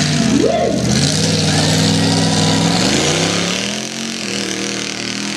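Lifted mud-bog truck's engine revving under load as it crawls over an obstacle and drives through deep mud, its pitch rising about three seconds in and then holding steady.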